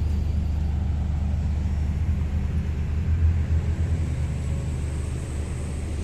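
Steady low machinery rumble from a hydraulic static pile driver's power unit running, swelling briefly about halfway through.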